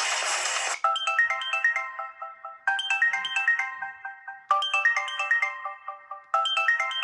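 Samsung Galaxy Mini ringtone: a short phrase of quick, bright chiming notes that repeats about every two seconds, four times. Under a second in, it takes over from the end of a denser, fuller ringtone, which cuts off.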